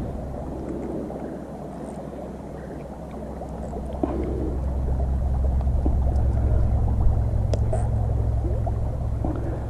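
A low, steady engine drone that grows louder about four seconds in, with a few light clicks over it.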